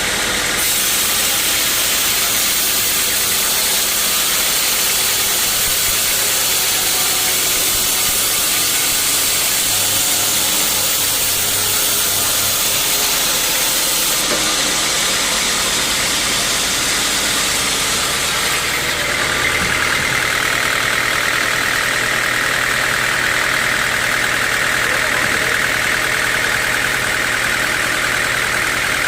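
Sawmill machinery running steadily: an engine-driven saw making a continuous loud hissing whir. The hiss changes shortly after 14 seconds, and a higher, steadier band comes in about two-thirds of the way through.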